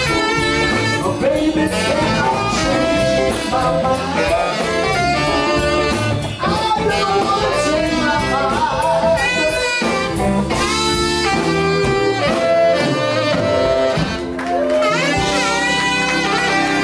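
Live soul-blues band playing loudly, with a tenor saxophone and a male singer's voice over the band.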